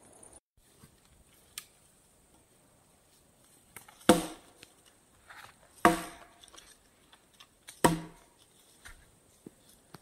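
A heavy wooden pole beating the trunk of a Siberian pine to knock its cones down: three loud wooden knocks about two seconds apart, each ringing briefly.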